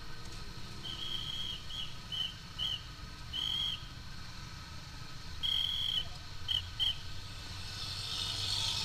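High whistle blown in a run of long and short blasts: one long note, three short ones, another long one, then after a pause a long note and two quick short ones. A steady low engine rumble runs underneath.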